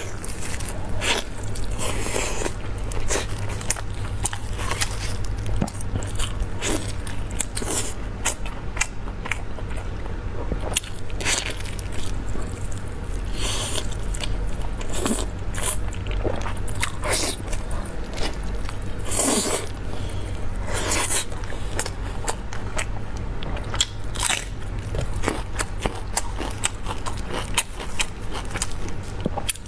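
A person biting and chewing tender braised beef off a large bone, close to a clip-on microphone: irregular short clicks, smacks and mouth sounds throughout, over a steady low hum.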